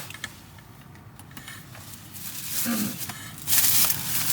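Rustling and crinkling of shopping bags and packaging as items are pulled out, quiet at first and loudest in a burst over the last second. A short vocal hum comes just before the loud burst.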